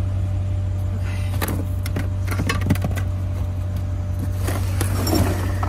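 Items being handled and shifted about in a dumpster: scattered rustles and light knocks in two clusters, over a steady low hum.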